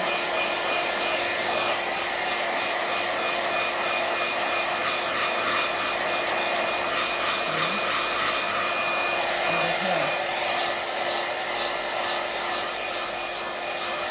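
iTeraCare terahertz wand blowing air with its built-in fan, a steady hair-dryer-like whoosh with a faint constant whine under it.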